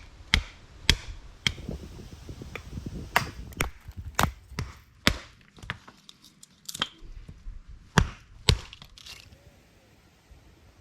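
Wood being split and broken for kindling: a dozen or so irregular sharp wooden cracks and knocks, loudest about four and eight seconds in.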